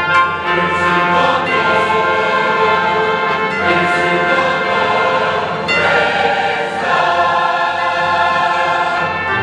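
A large choir singing with orchestral accompaniment, holding full chords.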